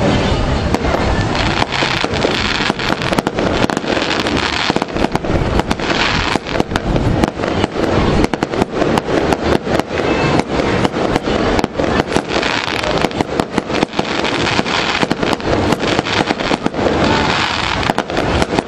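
Loud, dense crackling: many sharp cracks and pops a second, without a break.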